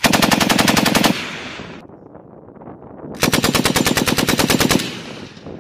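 Belt-fed machine gun firing two long bursts of automatic fire, about two seconds apart. Each burst trails off in an echo across the range.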